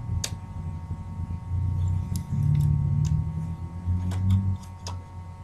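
Scattered small clicks and taps of tools and plastic parts as an old laptop is taken apart, over a low, uneven rumble of handling noise.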